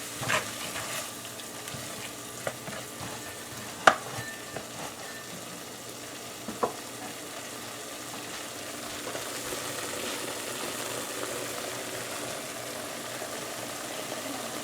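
Curry paste and onions sizzling in hot oil in a pan while being stirred, frying down before the meat is added. A few sharp knocks of a utensil on the pan, the loudest about four seconds in.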